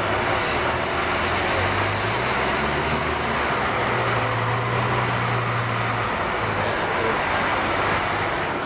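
Caterpillar 374D excavator's diesel engine running, a low drone that steps up in pitch about two seconds in and again near the middle before dropping back, over a steady wash of machine noise.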